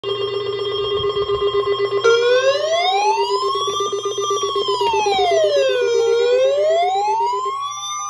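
Weather alert radios sounding their alarms for an incoming severe thunderstorm warning: a steady alert tone over a harsh buzzing tone. About two seconds in, a siren joins that slowly rises and falls, about once every four seconds. The buzzing stops shortly before the end.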